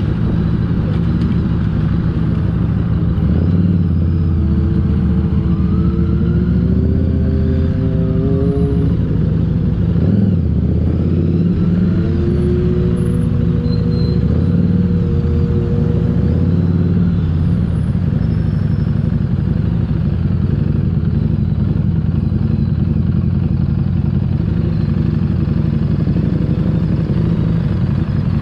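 Harley-Davidson Street 750's V-twin engine running at road speed under a steady rush of noise, its pitch climbing twice as the bike accelerates.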